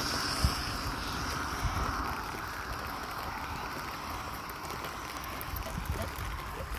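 Steady hiss of rain on a wet street, with irregular low thumps from footsteps and a hand-held camera being carried along.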